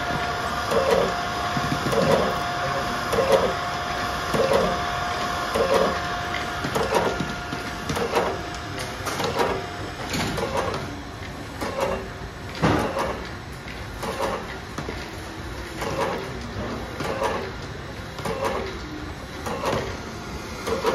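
Automatic tube labeling machine running, cycling rhythmically about once every 1.2 seconds as the tubes are labeled. A steady whine runs under it and stops about a third of the way in. A sharper knock comes near the middle.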